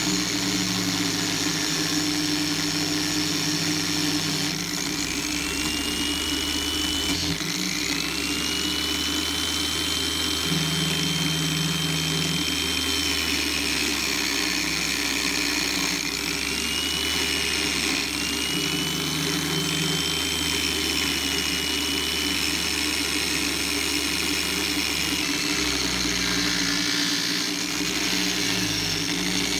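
A power tool's motor running steadily, its whine drifting up and down in pitch.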